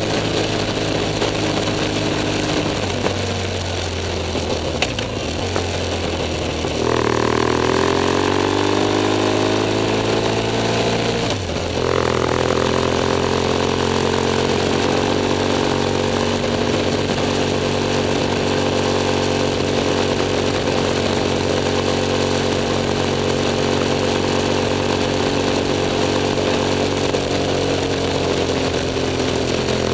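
BMW F 800 S parallel-twin engine running while the motorcycle rides along, with road and wind noise. The revs sag a few seconds in, jump up and glide down about seven seconds in, break briefly near twelve seconds, then hold steady.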